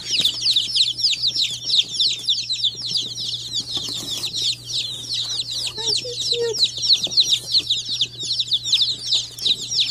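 A boxful of some twenty newly hatched baby chicks peeping without pause: many high, quickly falling chirps overlapping into a constant chorus.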